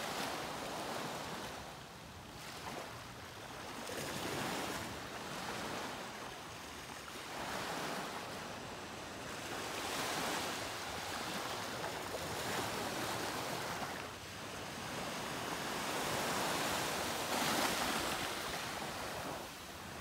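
Small waves breaking and washing up onto a sandy beach, the surf swelling and fading every few seconds.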